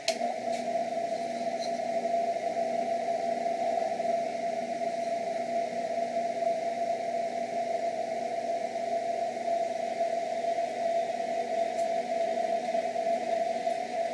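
Benchtop drill press switched on with a click, then its motor running steadily as the bit drills through 4-inch square steel tube, drilling well and really quiet.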